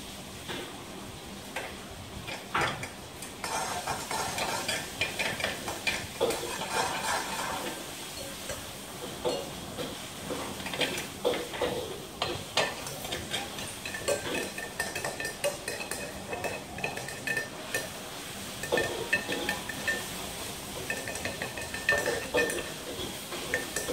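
Small hard objects being handled: irregular clinking, tapping and scraping, with short ringing clinks in the second half.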